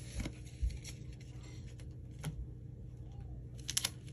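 Quiet handling of Pokémon trading cards and foil booster packs: a few soft taps and rustles, with a quick cluster of clicks near the end as the packs are picked up.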